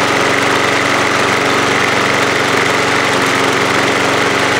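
Craftsman 6.25 horsepower push mower's small single-cylinder engine running steadily at an even pitch, idling a bit low, which the owner takes as an idle speed that needs adjusting.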